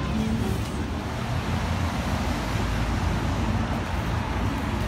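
Steady city street noise: a low traffic rumble from passing road vehicles.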